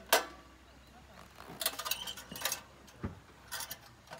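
Stainless steel rocket stove being handled, with scattered metal clinks and clanks as its fuel-feed door is folded out. The sharpest clank comes right at the start, then a cluster of lighter clinks and a dull thud.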